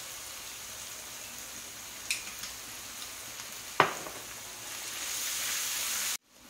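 Squid, onion and chilli sizzling in an aluminium wok, with a single sharp knock about four seconds in. The sizzle grows louder as a metal spatula stirs the pan, then cuts off suddenly.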